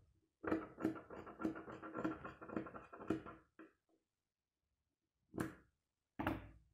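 Fabric scissors snipping through lace, a quick run of cuts lasting about three seconds, followed near the end by two short knocks about a second apart.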